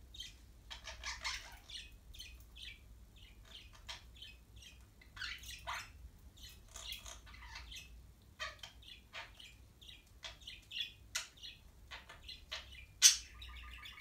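A budgie and a Quaker parrot chirping and squawking in quick, irregular short calls, with one sharp, louder squawk near the end.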